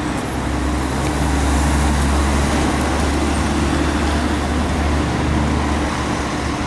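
Street traffic passing: a city bus drives through with a low engine rumble that eases near the end, while cars and a van go by with tyre hiss.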